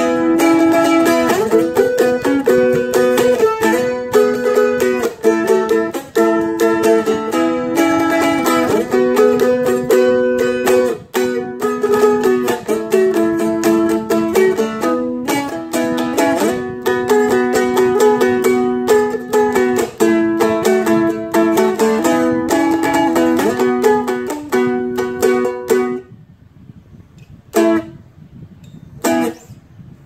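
Seagull Merlin M4 four-string dulcimer strummed fast with a flatpick, playing a blues-based chord riff in B with the chords changing every second or so. The strumming stops about 26 seconds in, and a couple of single strums ring out near the end.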